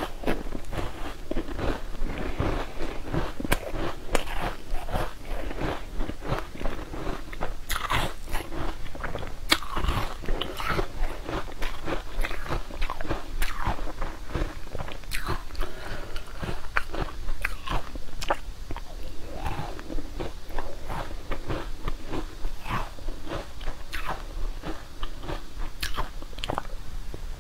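Close-up biting and chewing of a pink frozen food bar: many irregular, sharp crunches and cracks as pieces are bitten off and chewed.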